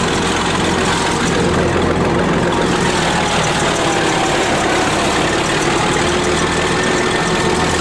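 Bulldozer engine running steadily.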